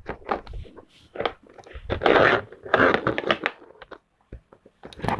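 Segmented plastic fidget toy being twisted and bent by hand, its little sections clicking and rattling against each other, with two busier bursts of clatter about two and three seconds in.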